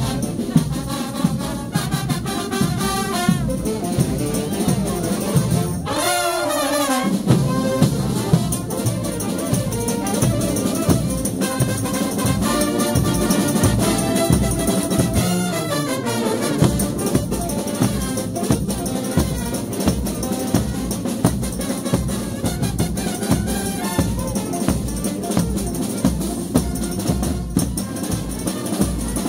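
Frevo street band playing: trumpets and trombones over a fast, even drum beat, with a falling run about six seconds in and another around fifteen seconds in.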